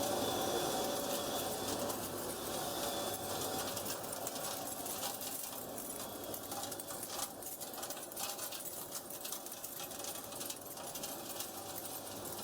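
BTA deep hole drilling machine running: a steady mechanical hum with a constant noisy whir and many sharp clicks and rattles, thicker from about a third of the way in.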